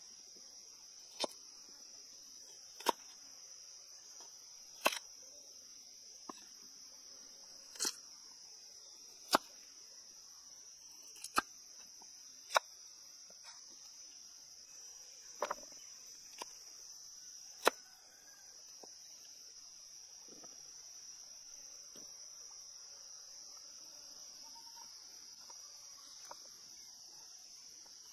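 A large knife cutting through a raw carrot onto a cutting board: about a dozen single sharp chops, one every second or two, stopping about two thirds of the way through. A steady high-pitched insect chorus runs underneath.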